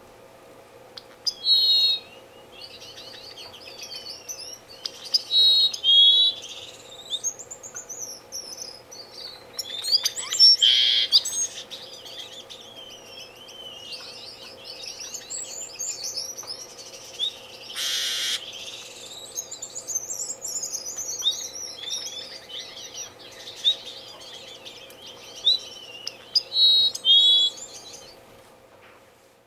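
Senegal firefinch (red-billed firefinch) calling: repeated short, high chirps and descending whistled notes in bursts, with two brief rushing noises partway through and a faint steady hum underneath.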